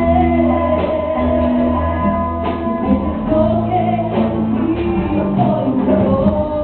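A live worship song: a woman sings into a microphone over a band with drum kit and congas, with a strong bass and regular drum hits throughout.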